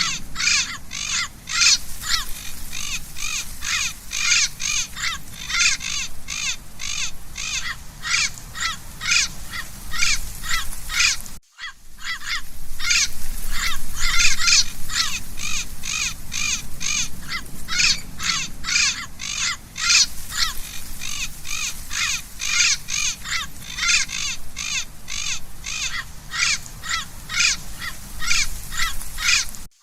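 Parrot giving a rapid series of short, harsh squawks, about two to three a second, with a brief silent gap about a third of the way through.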